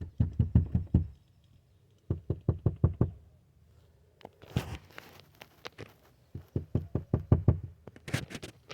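Squirrel gnawing, teeth rasping against something hard: bursts of rapid sharp knocking clicks, about a second each, with short pauses between.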